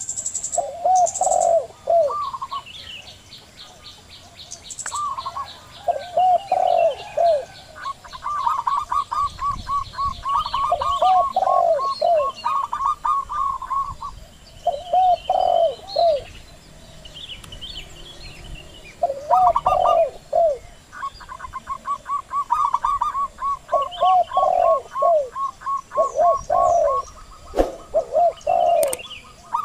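Doves cooing: a zebra dove's long, rapid runs of staccato cooing notes, alternating with groups of three or four lower, bouncing coos from a spotted dove. Smaller birds chirp faintly above them.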